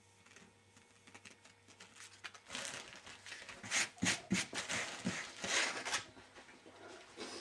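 Close rustling and crinkling with a few soft knocks, in a dense flurry from about two and a half seconds in to about six seconds in.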